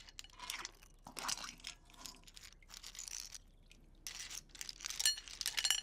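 Cooked clam shells clattering against one another as the clams are picked through for any that stayed closed, in scattered clusters of sharp clicks that come thickest and loudest near the end.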